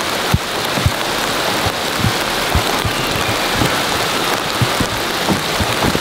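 Steady rain falling, an even hiss, with scattered soft low thumps throughout.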